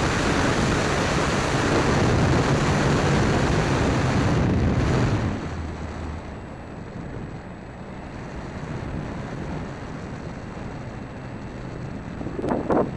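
Airflow rushing over the microphone of a camera mounted on a flying Dynam Waco electric RC biplane, with the motor and propeller running under it. The rush is loud for about the first five seconds, then drops off and stays lower, with a couple of brief louder sounds near the end.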